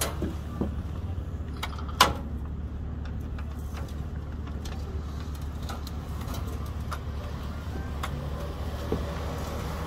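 A power wheelchair backing onto a wheelchair platform lift while its metal door is held open by hand: a steady low hum with scattered light clicks and one sharp knock about two seconds in.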